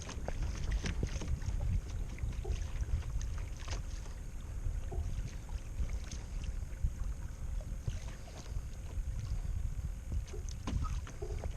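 Water lapping and splashing against a fishing kayak's hull, with scattered small knocks and wind rumbling on the microphone.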